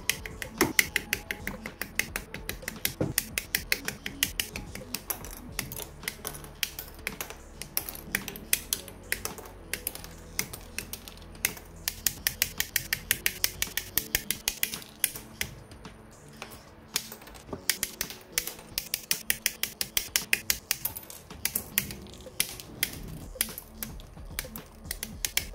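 Rapid, irregular sharp plastic clicks of a model kit being built: parts nipped from their runners and snapped together. Background music plays underneath.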